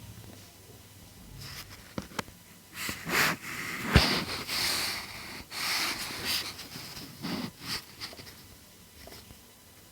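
Handling noises: irregular rustling and scraping with a few sharp clicks, and a sharp knock about four seconds in.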